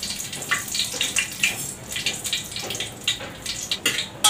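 Bay leaves sizzling and crackling in hot oil in a pan, the tempering for a curry. A steel pot clanks once shortly before the end.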